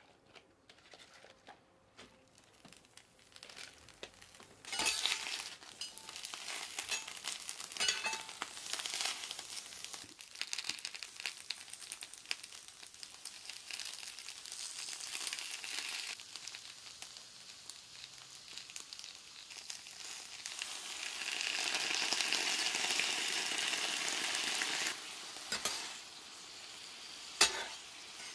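Cabbage sizzling on a hot metal griddle plate, starting about five seconds in and growing louder later on. Near the end a few sharp metal clacks as spatulas scrape and toss the cabbage on the plate.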